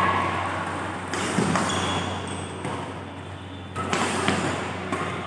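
Badminton rackets striking the shuttlecock in a fast doubles rally: a few sharp hits about a second in, then more near the end, including a jump smash. The hits echo in a large sports hall.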